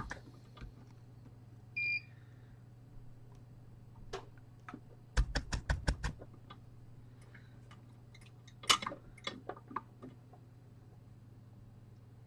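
A single short electronic beep about two seconds in, then quick clusters of small sharp clicks and taps, the loudest around five to six seconds and near nine seconds, over a steady low hum of bench equipment.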